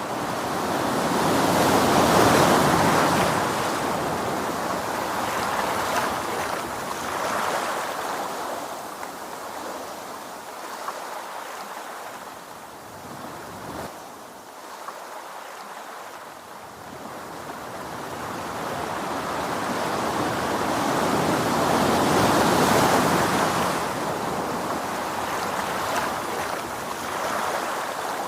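Sea waves breaking and washing in: one surge about two seconds in that slowly ebbs away, then another swelling to a peak about three-quarters of the way through.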